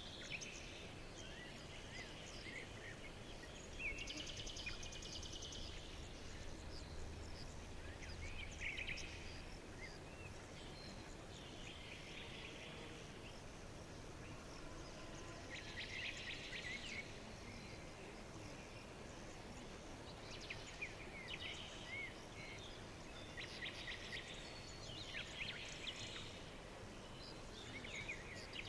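Several birds singing in a forest: repeated trilled songs and short chirping calls, over a steady low background hiss.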